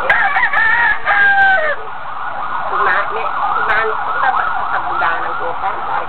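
A rooster crows once at the start, one long call of about two seconds, over a steady background din of overlapping voices and calls.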